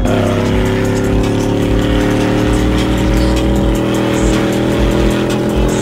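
A vehicle's engine running under a steady drone, its revs sinking slowly as it eases off, over background music with a steady beat.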